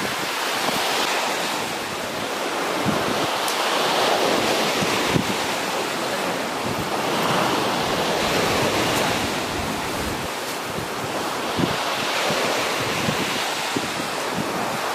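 Sea surf washing onto a beach, a steady rush that swells and eases every few seconds.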